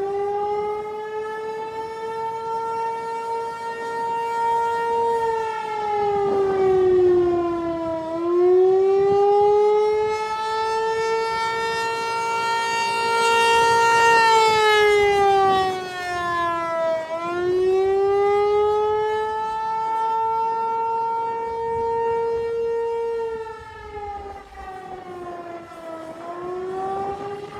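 Federal Signal 508 outdoor warning siren sounding a loud, steady wail during a test. The tone holds level, then sags in pitch and climbs back again about every nine seconds.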